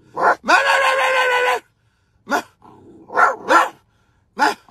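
Puppy barking: a short yap, a long held howl-like bark of about a second, then four short barks spread over the next few seconds.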